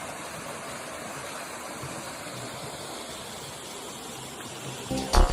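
Steady rush of flowing water. Near the end, music starts with a loud hit.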